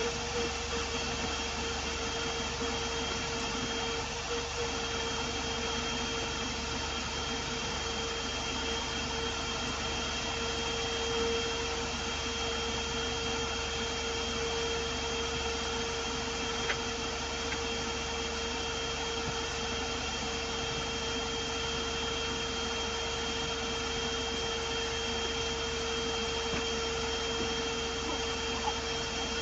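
Steady whir of a small electric motor, such as a fan, with a constant hum running underneath.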